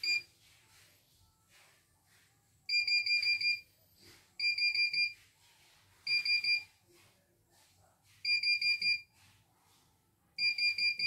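CNY E900 embroidery machine's control-panel keys beeping under repeated button presses as its design-file list is scrolled. One short beep comes first, then five quick runs of four to six high-pitched beeps, about six a second.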